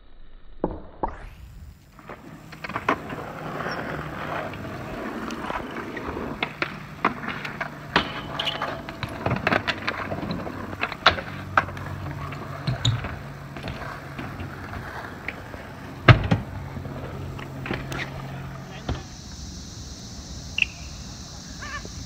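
BMX bike riding on concrete: tyres rolling with a steady low hum, broken by many sharp knocks and clacks of landings and the bike striking the ground and obstacles, the loudest about sixteen seconds in.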